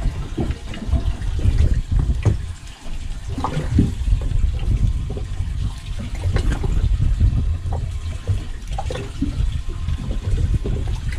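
Seawater sloshing and slapping against the side of a fishing boat, an uneven, churning wash with a strong low rumble.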